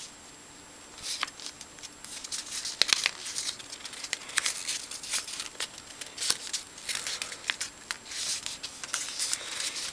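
A sheet of origami paper being folded and creased by hand: intermittent rustling and crinkling with short, sharp crackles, starting about a second in.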